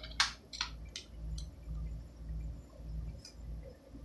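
Computer keyboard keystrokes: four sharp clicks in the first second and a half, then one faint one near the end, as a reboot command is typed. Under them runs a low hum that swells and fades in a slow, even rhythm.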